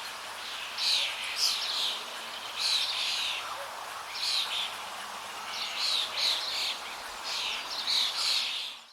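Birds singing short chirping phrases, repeated about every second and a half, over the steady rush of flowing water; the whole ambience fades out at the very end.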